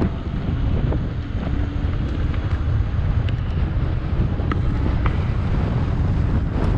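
Wind buffeting the microphone: a loud, steady low rumble, with a few faint ticks through it.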